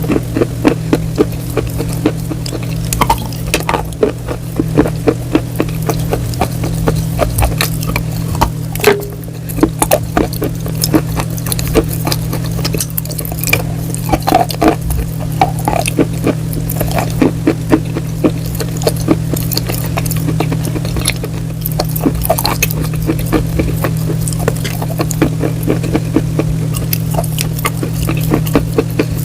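Crunchy food being bitten and chewed close to the microphone: a dense, irregular run of crisp crunches and crackles, over a steady low hum.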